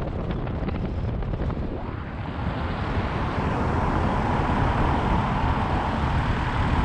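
Car driving along a road, heard from outside the car by the wheel: steady tyre roar and rushing wind on the microphone, growing a little louder about halfway through.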